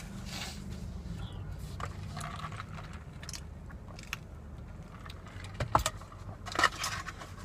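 Eating a breaded, fried Mac n Cheetos stick: scattered crunching and clicking bites, the loudest about six and six and a half seconds in, over a steady low hum.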